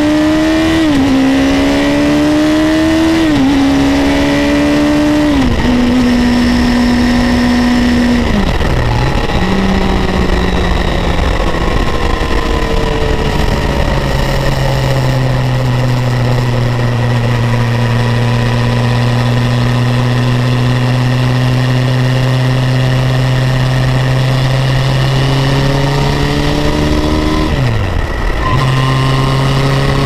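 2006 Yamaha FZ1N's 20-valve, 998 cc inline-four engine from the saddle: it revs up through three quick upshifts in the first six seconds, the pitch climbing and dropping back at each shift, then eases off to a steady, lower cruise. Two more gear changes show as brief drops in revs, about nine seconds in and near the end, over steady wind and road rush.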